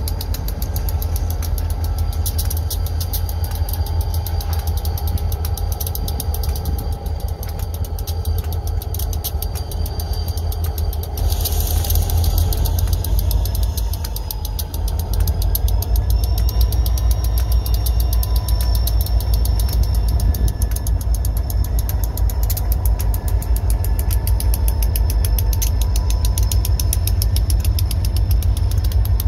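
Diesel freight locomotives passing close by at low speed, their engines giving a deep, steady rumble with a faint high whine over it. A brief hiss comes in near the middle.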